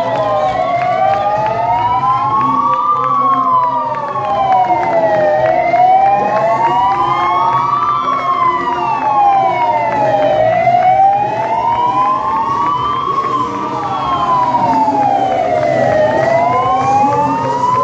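Several emergency-vehicle sirens wailing at once from a slow convoy of police cars and a civil-protection pickup. Each siren rises and falls in pitch about every five seconds, out of step with the others.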